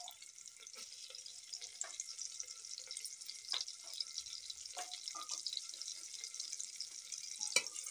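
Sliced onions frying in hot oil in a pressure cooker: a steady sizzle with scattered crackles and pops, slowly growing louder. A sharp knock sounds near the end.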